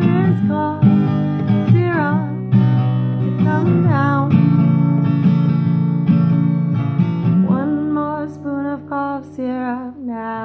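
Ukulele strummed steadily with a voice singing a melody over it; the strumming softens about seven seconds in, leaving the held sung notes more prominent.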